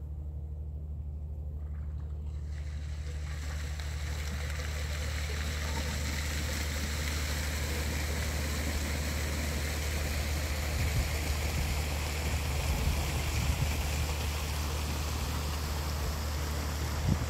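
Wind noise on a phone microphone: a steady rush that grows louder over the first few seconds, with irregular low buffeting rumbles in the later part.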